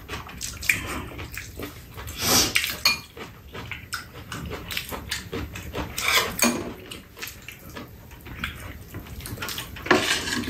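Metal spoons clinking and scraping against ceramic bowls and a plate as two people eat, with chewing and slurping. Louder clatters come about two, six and ten seconds in.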